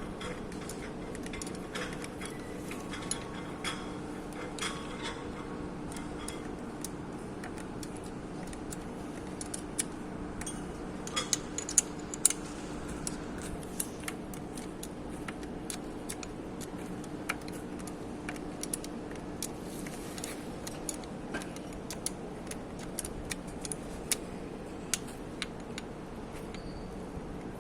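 Metal hand tools and small parts clicking and clinking at irregular moments while an outboard motor is taken apart, over a steady low hum.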